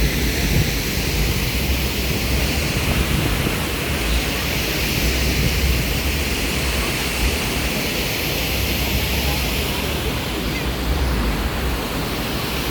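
Steady rushing water noise with a low rumble.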